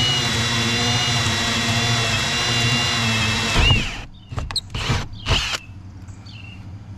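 Cordless drill with a hole saw cutting through a boat's cabin wall: a steady whine that dips and stops about four seconds in as the cut finishes. A few sharp knocks follow.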